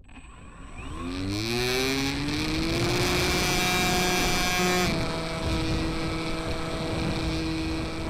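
RC model plane's motor and propeller, heard from the onboard camera, spooling up for takeoff: the whine rises in pitch over the first three seconds, holds steady, and steps down slightly about five seconds in as the throttle is eased after climbing out. Steady wind rush over the plane's microphone runs underneath.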